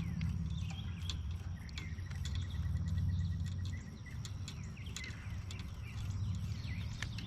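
Wild birds chirping and calling, with a rapid even trill lasting almost two seconds about two seconds in, over a steady low rumble.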